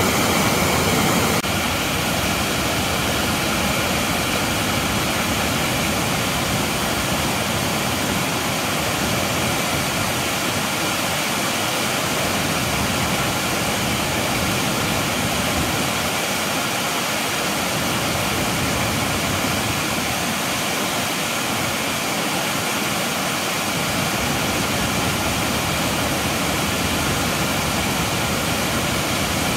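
Shallow mountain creek rushing over rocks: a steady, even rush of water.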